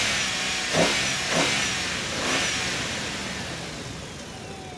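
Car engine revving, rising in pitch a couple of times in the first second and a half, then fading away steadily.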